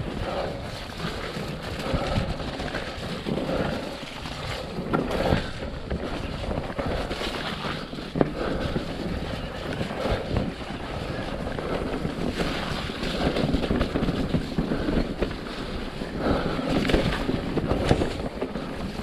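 Electric mountain bike descending fast on a muddy dirt trail: wind buffeting the microphone over the rumble of the tyres, with a few sharp knocks from the bike over bumps.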